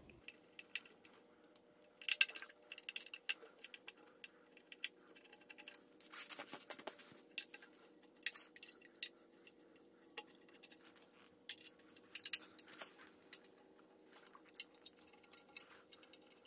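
Faint metallic clicking and clinking from a hand wrench and socket turning out oil pan bolts on the M119 engine, in scattered single clicks and short quick runs.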